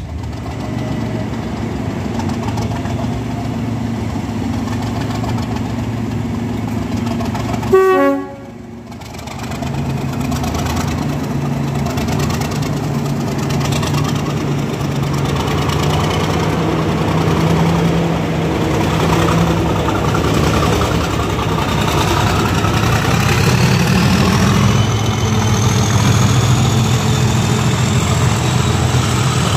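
Class 37 diesel locomotive 37407 gives a short horn toot about eight seconds in. After that its English Electric V12 engine runs with a steady low drone as the train passes, with a rising whistle near the end.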